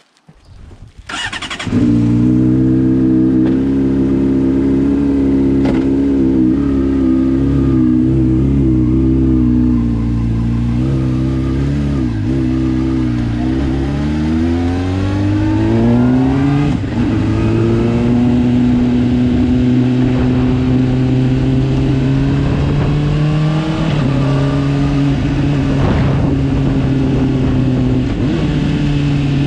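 Honda sport motorcycle engine started about a second in and idling steadily. From about twelve seconds it revs up in rising sweeps as the bike pulls away and accelerates through the gears, then runs at road speed with further changes in pitch.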